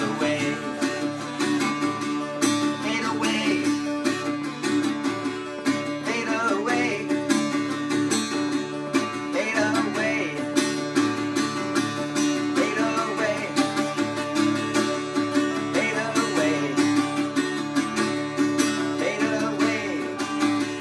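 Two acoustic guitars playing an instrumental passage, strummed chords in a steady rhythm with picked melody notes over them.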